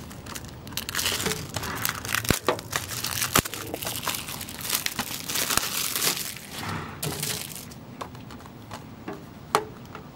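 Plastic shrink wrap being torn and crinkled off a Blu-ray case by hand, a dense run of crackling with sharp clicks that thins out after about seven seconds to a few scattered clicks.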